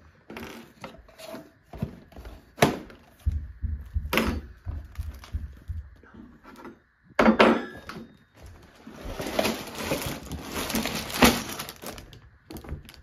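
Cardboard Lego set box being slit with a knife and torn open by hand: a string of sharp cracks and snaps of cardboard. Then a few seconds of steady rustling and crinkling as the plastic bags of bricks inside are handled.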